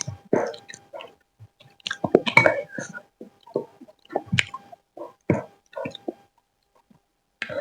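Close-miked chewing and wet mouth smacks of a person eating noodles, in irregular short clicks about once or twice a second, pausing for about a second near the end.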